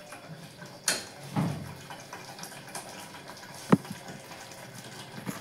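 Thick potato-and-aubergine curry sizzling and bubbling as it fries in an open aluminium pressure cooker on a gas flame, with two strokes of a spatula scraping through it about a second in. After almost four seconds a single sharp clink of the spatula against the pot.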